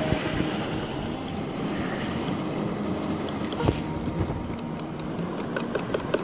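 Wire whisk beating crepe batter in an enamel bowl, its wires clicking rapidly and evenly against the bowl, the clicks growing sharper past the middle. A steady rush of stream water runs underneath.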